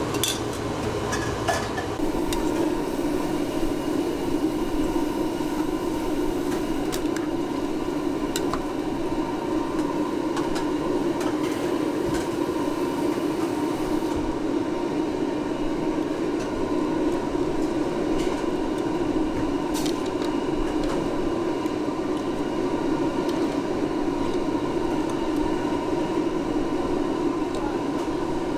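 Steady noodle-shop kitchen noise: an even mechanical hum, with a few short clinks of dishes scattered through it.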